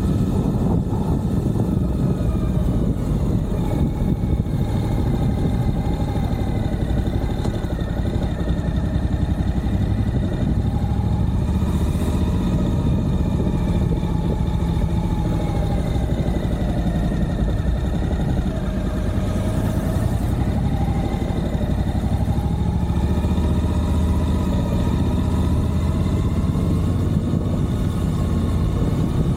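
Suzuki V-Strom 1050XT's 90-degree V-twin engine running steadily on the move, its note rising and falling gently with the throttle over low road and wind rumble.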